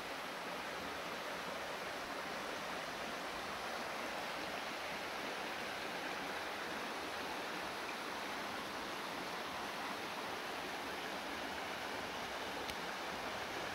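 Shallow rocky river rippling over stones and riffles: a steady, even rush of running water.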